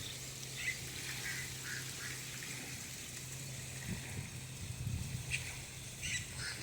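Birds calling: short high chirps, a cluster of them about a second in and more near the end, over a steady low hum.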